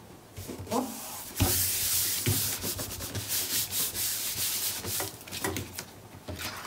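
Hands rubbing and smoothing patterned paper panels down onto a cardstock page: a dry, brushing paper rustle with a few light taps, loudest from about a second and a half in.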